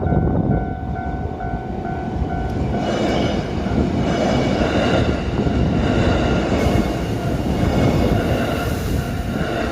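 Sagami Line electric train passing through a station without stopping, its running and wheel-on-rail noise swelling about three seconds in and staying loud. A repeating electronic ding, steady in pitch, is heard under it at the start.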